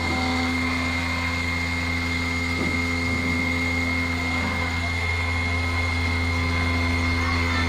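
CNC 2417 router's 100-watt spindle running steadily as its engraving bit cuts shallowly into an aluminium plate at a slow feed: a steady low hum with a thin high whine on top.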